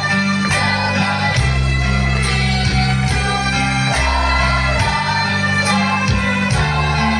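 Children's choir singing over an accompaniment with bass, guitar and a steady beat.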